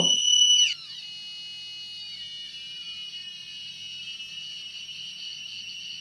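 Passive piezo buzzer driven by an Arduino square wave, its pitch set by a potentiometer being turned. A loud, high-pitched beep drops abruptly in pitch and loudness under a second in. It then continues as a quieter, buzzy tone whose pitch slides slowly downward as the knob turns.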